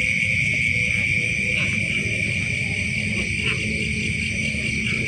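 Night insect chorus, likely crickets or katydids in a rice field, making one steady high-pitched trill. A low rumble runs underneath, and a couple of faint short calls come about a second and a half and three and a half seconds in.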